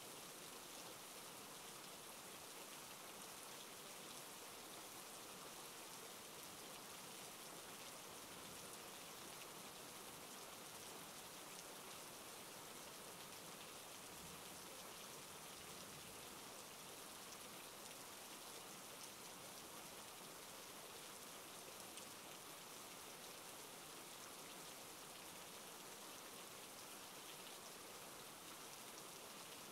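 Faint, steady rainfall: an even hiss of rain that does not change, with no thunder or other events.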